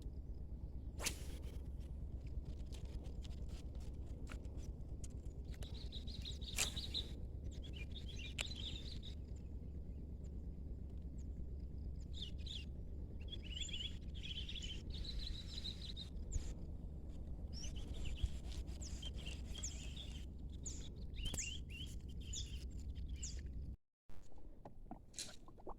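Birds chirping in short bursts over a steady low rumble, with a few sharp clicks; the sound cuts out abruptly near the end.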